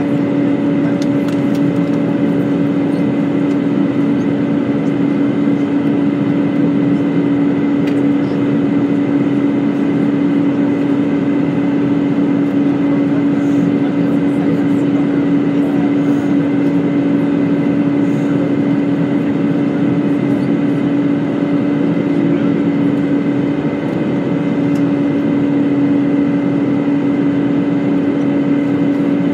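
Airbus A320 cabin noise in flight during the descent: a steady engine drone with a constant low hum over the rush of air along the fuselage.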